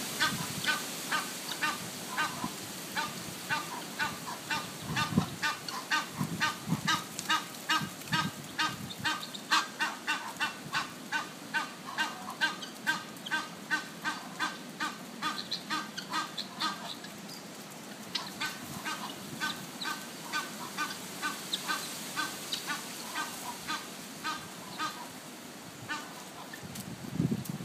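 Egyptian geese honking in a long run of short repeated calls, about two or three a second, thinning out briefly past the middle. There are a few low bumps.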